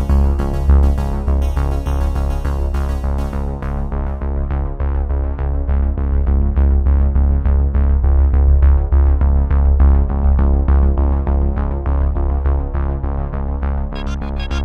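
Background synthesizer music with evenly repeating notes over a steady bass; the bright upper layer drops out about four seconds in and comes back near the end.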